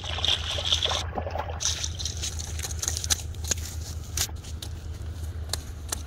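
A hooked fish thrashing and splashing in shallow water for the first second and a half or so, followed by scattered clicks and scrapes as it is pulled out onto the mud. A steady low hum runs underneath.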